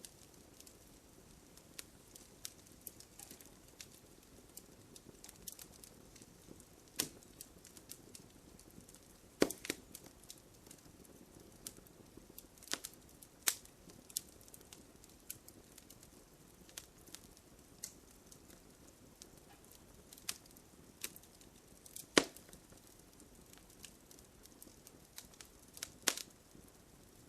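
Campfire crackling: irregular sharp pops and snaps over a faint low rush of burning, with a few louder snaps scattered through and the sharpest late on.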